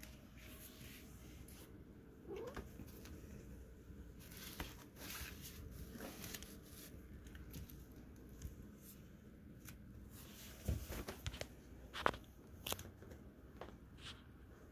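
A nylon pop-up cat tunnel rustling and crinkling as a cat moves about inside it, in scattered irregular crinkles, the sharpest ones a few seconds before the end. A short rising cat call comes about two seconds in.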